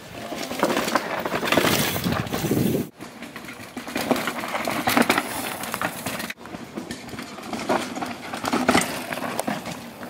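Downhill mountain bikes passing close on a rough dirt-and-rock trail: tyres crunching and the bikes rattling, a dense run of clicks and knocks. It breaks off abruptly about three seconds in and again a little after six seconds, each time starting on a new rider's pass.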